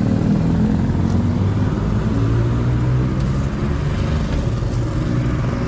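Motorcycle engines running at low revs, a steady low engine note that shifts slightly as the revs change.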